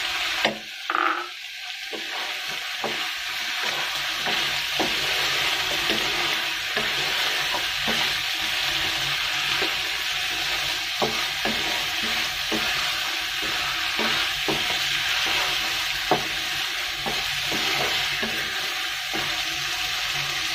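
Potato chunks, a rui fish head and spice paste sizzling steadily in hot oil in a wok while being stirred and sautéed with a wooden spatula, with scattered clicks and scrapes of the spatula against the pan.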